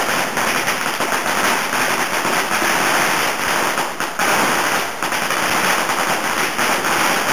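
Many firecrackers going off at once in a dense, unbroken rattle of rapid bangs, with a brief lull about four seconds in.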